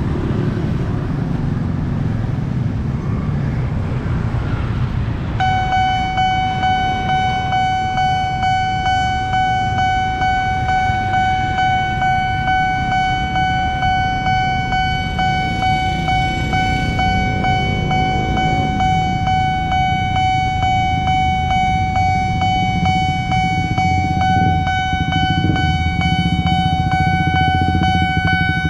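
Road traffic, mostly motorcycles, running at a level crossing. About five seconds in, the crossing's Nippon Signal electronic warning siren starts and holds one steady high tone with overtones, the alarm that a train is approaching and the crossing is closing.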